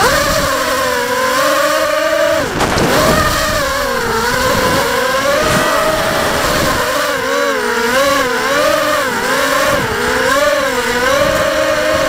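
Electric motors and propellers of a small FPV quadcopter whining, heard through its on-board camera. The pitch dips sharply about two and a half seconds in, then climbs and wavers quickly up and down as the throttle changes.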